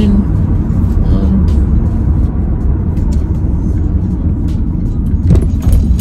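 Steady low rumble of road and engine noise inside a moving car's cabin, with a few sharp clicks about five seconds in.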